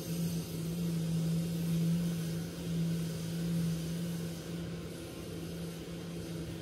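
An engine running steadily, a constant low hum with no change in speed.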